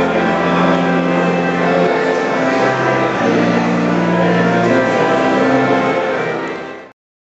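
Pipe organ playing slow, held chords, its long bass notes changing about every two seconds; it fades out and stops shortly before the end.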